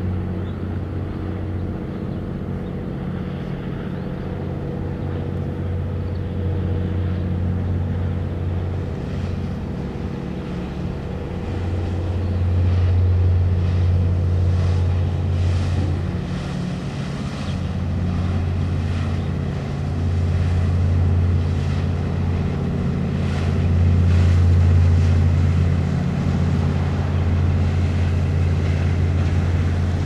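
Boat engine running steadily with a low drone, swelling louder several times as it passes.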